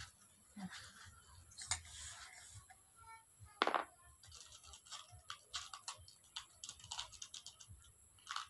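Scattered small clicks and taps of hands working on the air rifle's bolt and small metal parts, with one louder click about three and a half seconds in and a quicker run of clicks in the second half.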